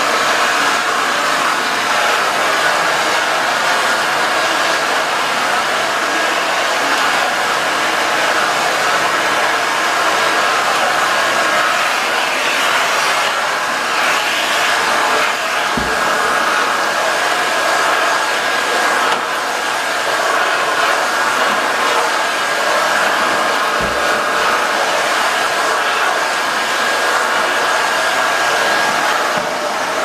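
Nilfisk GM80 canister vacuum cleaner running steadily with a floor nozzle working a hard floor, a thin steady whistle over the motor noise. Two brief low thumps, about halfway through and again some eight seconds later.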